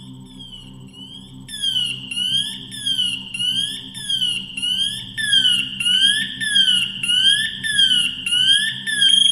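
Firefighter PASS alarm sounding: an electronic warbling tone that sweeps up and down about three times every two seconds. It is faint at first and becomes much louder about a second and a half in. The sound signals that the wearer has not moved for about 30 seconds and may be incapacitated.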